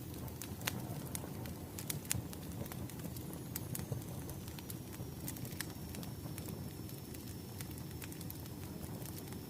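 Wood fire burning, a low steady rumble of flames with irregular sharp crackles and pops of burning firewood.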